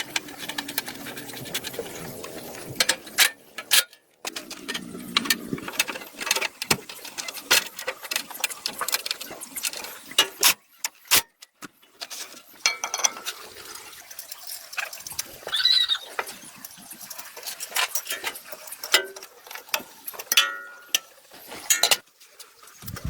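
Hand work on metal plow parts: a run of sharp knocks, clanks and scraping, with a brief high squeal past the middle.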